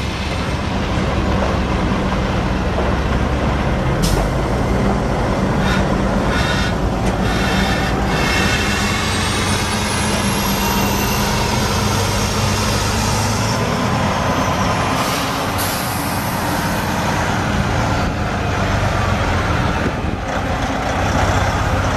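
Detroit Diesel Series 60 14-litre inline-six turbo diesel of a Sterling AT9500 semi truck running steadily, with short hisses of air from the air brakes. A thin high whine rises about nine seconds in.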